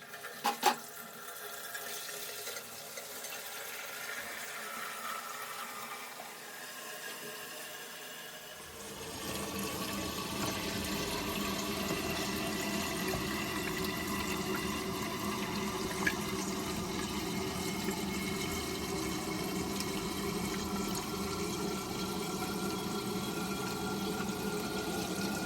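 Water running steadily into a Grohe Rapid SL concealed toilet cistern through its fill valve, after a short click at the start; the flow gets louder about nine seconds in.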